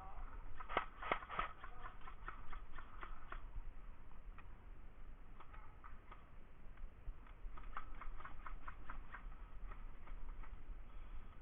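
Airsoft guns firing: two runs of quick, sharp clicks at about four or five a second, the first near the start and the second past the middle.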